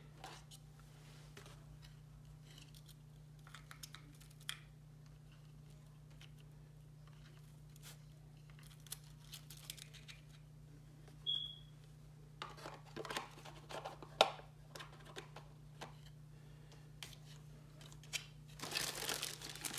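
Hands handling plastic packaging and RC car parts: scattered crinkling, rustling and light clicks, busiest in the second half and again near the end. A brief high squeak comes about halfway through, and a sharp tap a little after it is the loudest sound. A faint steady low hum runs underneath.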